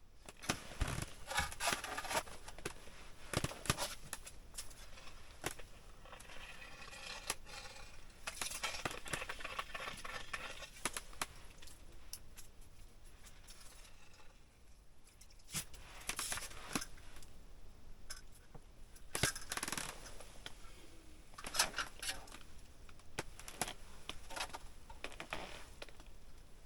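Irregular close-up handling noises: clusters of sharp clicks, scrapes and rustles that come and go, with quieter gaps between them.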